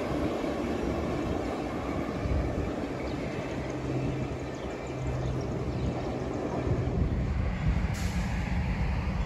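Freight train of container-carrying well cars rolling along the rails, its rumble slowly fading as the last cars move away. About eight seconds in it cuts to the deeper, growing rumble of an approaching train.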